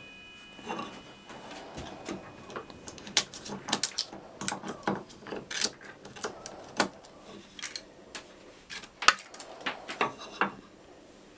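Hand chisel paring and scraping out the bottom of a walnut dado, breaking away the thin ridges left between miter saw kerfs: a run of irregular sharp scrapes and clicks.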